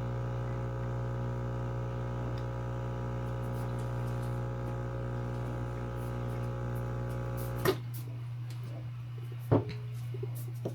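Espresso machine pump humming steadily while pulling a shot, then cutting off suddenly with a click about three-quarters of the way through. A sharp knock follows about two seconds later.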